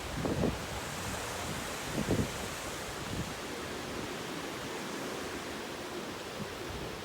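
Typhoon wind and heavy rain: a steady hiss of rain and wind, with a couple of low gusts buffeting the microphone in the first two or three seconds.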